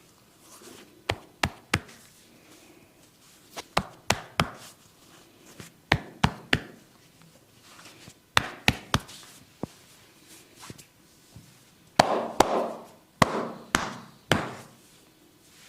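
Percussive hand massage: the barber's hands strike the body in quick sets of two or three sharp slaps, a set about every two seconds, some followed by a brief rub.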